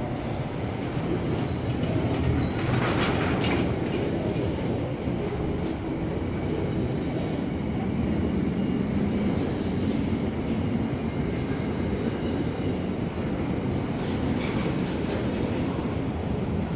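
Long freight train's wagons rolling past with a steady low rumble of wheels on rail. Brief higher-pitched wheel noise rises out of it about three seconds in and again near the end.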